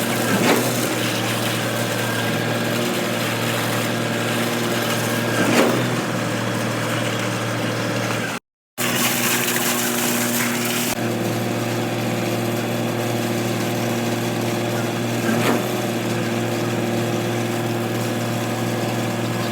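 A machine running steadily with a constant hum, with a few short knocks over it; the sound cuts out for a moment about eight and a half seconds in.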